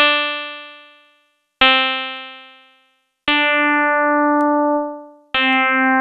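Four FM synthesizer notes, all on the same pitch. The first two start sharply and die away over about a second, as an envelope shapes the carrier oscillator's volume. The next two are held, and their bright upper overtones fade while the note sustains, so the tone darkens as an envelope on the modulator's volume closes.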